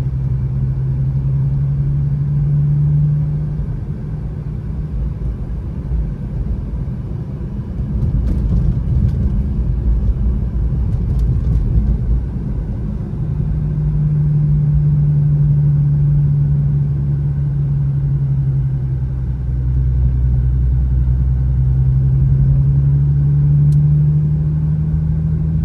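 Infiniti Q50 3.7's V6 engine heard from inside the cabin while driving, a steady low hum that climbs and eases a few times as the car speeds up and lifts off, over a constant rumble of tyre and road noise.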